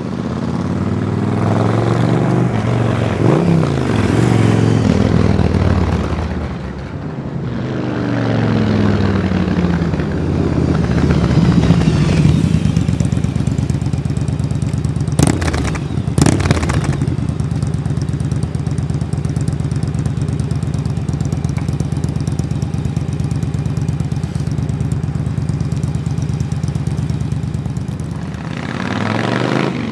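Yamaha Drag Star 1100's air-cooled V-twin engine blipped several times, rising and falling in pitch, then settling into a steady idle through its exhaust. Two sharp clicks come about halfway through.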